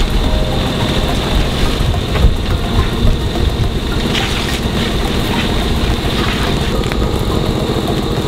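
A small engine running steadily at a constant speed: the water pump supplying the fire hose.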